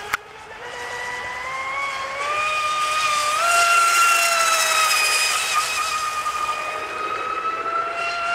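Radio-controlled outrigger racing boat running flat out across the water: a high motor whine that climbs in pitch over the first three seconds, then holds steady, with a hiss of spray. There is a single sharp click right at the start.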